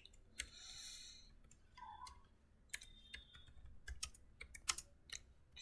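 Computer keyboard typing: scattered, irregular key clicks, faint.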